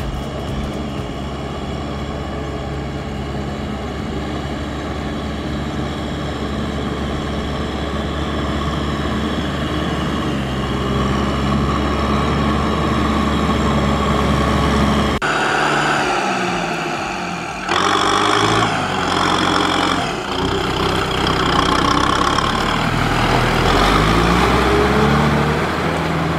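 Kubota M6040SU tractor's four-cylinder diesel engine running steadily while pulling a trailer. After a sudden cut about 15 seconds in, the engine revs up and down as the tractor works through deep mud.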